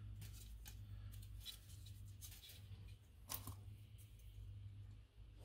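Faint small handling sounds of hand work: light clicks and rustles, with one slightly louder click about three seconds in, over a steady low hum.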